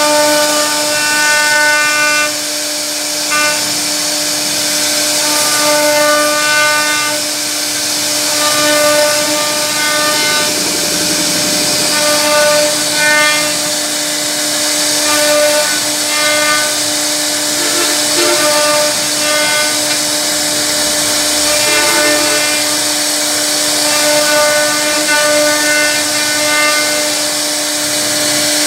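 CNC router spindle running with a steady whine while its bit carves a relief pattern into a wooden panel, over a steady hiss. A higher tone with overtones comes and goes every second or two as the bit's cut changes.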